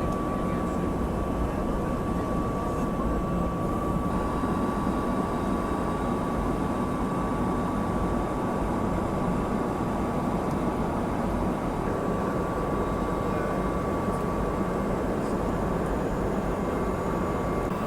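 Steady, unchanging noise of a NATO E-3A AWACS jet aircraft's engines and airflow, with a constant high-pitched whine over it.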